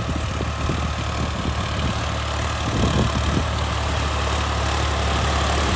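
Solis 5015 tractor's diesel engine running steadily under load as it pulls a disc plough through the soil, a low drone that grows slightly louder near the end.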